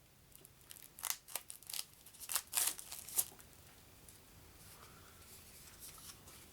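A card deck's packaging being opened by hand: a quick run of short, sharp crackling rips and snips between about one and three seconds in, then only faint handling.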